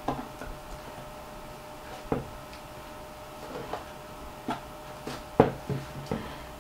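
A few light knocks and clicks from hands nudging a side-by-side dual telescope rig that is balanced on a stick under its rail, the loudest about five seconds in. A faint steady hum runs underneath.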